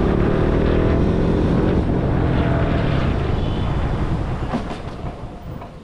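Motorcycle engine and wind noise while riding, the engine note falling slowly as the revs drop over the first two seconds, then growing quieter about four seconds in.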